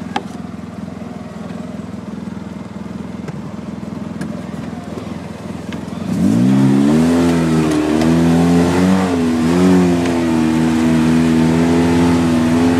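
Polaris RZR side-by-side's engine running at low revs. About six seconds in it revs up sharply and then holds at high revs, its pitch rising and dipping slightly.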